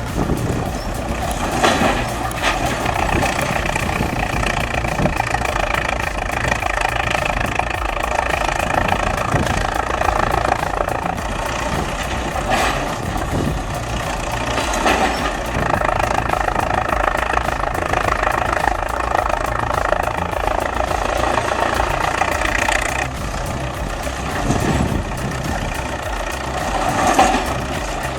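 Heavy earthmoving machine's engine running steadily under load, with a few short metallic knocks.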